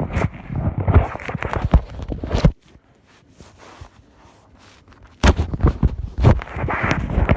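Stomach growling, heard close up: gurgling low rumbles broken by clicks, which stop for about two and a half seconds in the middle and then start again.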